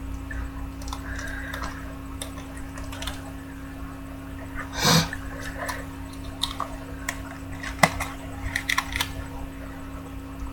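Small clicks and scrapes of a trading card being worked into a hard plastic card case, with one louder scrape about five seconds in and a sharp click near eight seconds, over a steady low hum.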